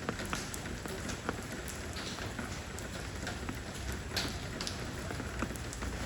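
Steady rain falling on stone, with individual drops landing as scattered sharp taps over the hiss.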